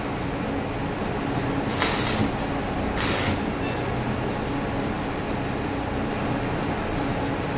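Steady mechanical hum of workshop machinery, with two short hissing bursts about two and three seconds in.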